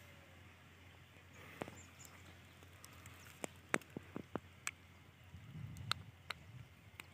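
Quiet open-field ambience with a scattering of short, sharp clicks and ticks, and a brief low rustle a little past the middle.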